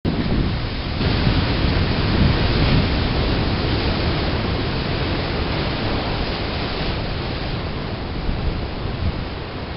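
Ocean surf breaking on a rocky shore: a loud, steady rush of water that swells about a second in and then slowly eases off.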